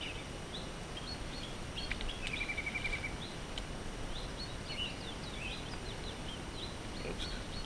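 Small birds singing: many short, separate chirps and a quick trill of about ten notes between two and three seconds in, over a steady low outdoor background rumble.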